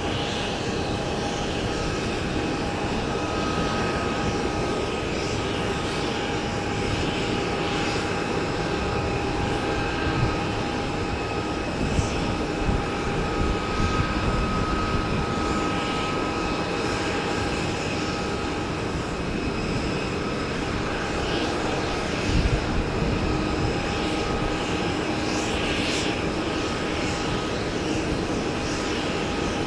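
Pilatus PC-12 NG single-engine turboprop (Pratt & Whitney PT6A) landing and rolling out: a steady engine hum with a constant whine over it, heard from a distance. A few brief low rumbles cut in about 12 and 22 seconds in.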